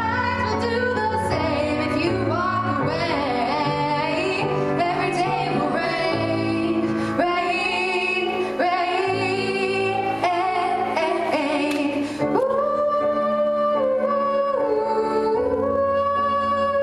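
A girl singing a song into a microphone over instrumental accompaniment; in the second half she holds long, steady notes.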